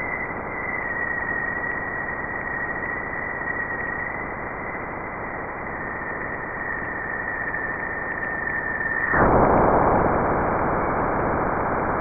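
Sonified radio and plasma-wave data from NASA's Juno spacecraft near Jupiter: a steady radio-like hiss with a thin, high, steady whistle running through it. About nine seconds in, the whistle stops and the hiss abruptly turns louder and coarser, marking Juno's crossing of the bow shock, the boundary where the solar wind hits Jupiter's magnetosphere.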